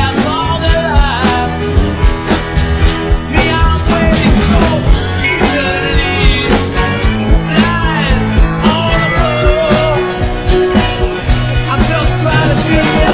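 Rock song with a singer over a steady drum beat, bass and guitar.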